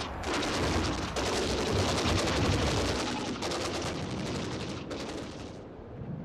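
Battle sound effect of rapid machine-gun fire, a dense rattle of shots over a low rumble. The firing stops about five and a half seconds in, leaving the low rumble.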